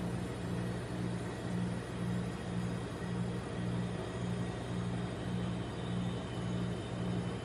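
Low electric hum of a rolled-ice-cream machine's refrigerated cold plate, with a slight regular waver about twice a second.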